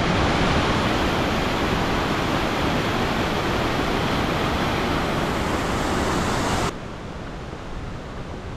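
Mountain stream cascading steeply over rocks, a loud steady rush of water that cuts off suddenly about two-thirds of the way through, leaving a much quieter steady hiss.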